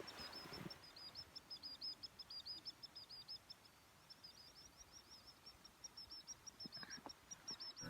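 A small bird singing faintly: a long, fast run of short, high chirps, several a second, with a brief pause a little after halfway.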